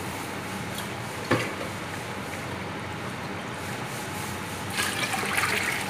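Pot of fried lobia masala with water just added, bubbling and hissing steadily. There is a single knock about a second in, and a brief splashy burst near the end.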